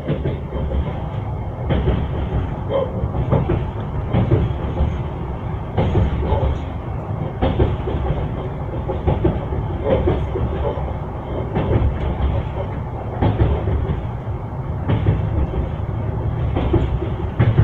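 Train wheels knocking over rail joints above the steady low rumble of a moving railway carriage, the clacks coming every second or two.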